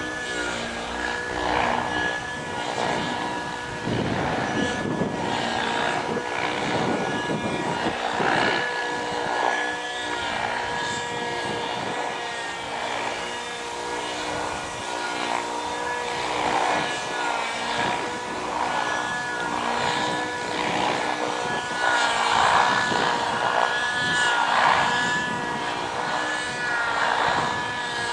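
Hirobo Freya 90 radio-controlled model helicopter flying aerobatics: its glow engine and rotor blades run steadily, with the engine note rising and falling over and over as it manoeuvres.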